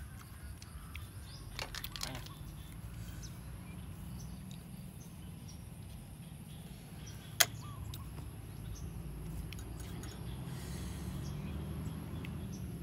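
A few light clicks about two seconds in and one sharp click about seven seconds in, over a faint low rumble. The clicks come from cooked snails being handled and picked from their shells over a metal pan.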